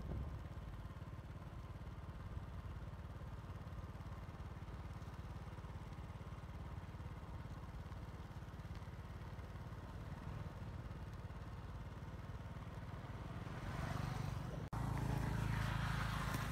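Motorbike engine running steadily while riding, with wind on the microphone. The sound grows louder and more rushing near the end.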